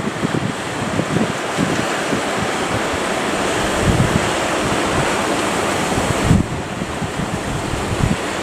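Strong wind buffeting the microphone in irregular low gusts over a steady rush of sea waves.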